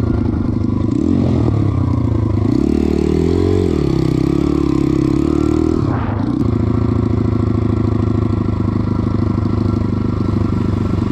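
Small single-cylinder pit bike engine revving up and down as it is ridden over rough ground, with a single knock about six seconds in, then running at an even, steady speed.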